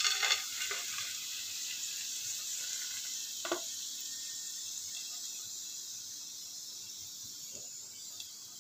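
Hot sesame oil still sizzling in a frying pan of sautéed adamant creeper (pirandai) just off the stove, the hiss slowly fading as the pieces and oil are tipped onto a plate. A few sharp clinks come in the first second and a single knock about three and a half seconds in.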